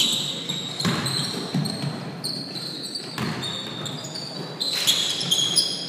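A pickup basketball game on a hardwood gym floor: a basketball bouncing and players' sneakers squeaking, with about five irregular sharp thuds and short high squeaks throughout.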